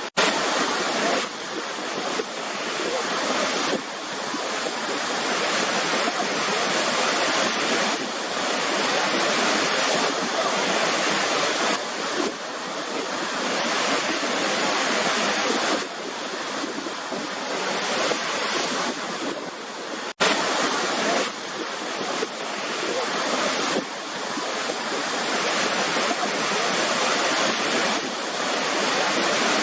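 Waterfall, a steady rush of falling water that swells and eases every few seconds. The sound cuts out for an instant twice, once at the very start and once about two-thirds of the way through.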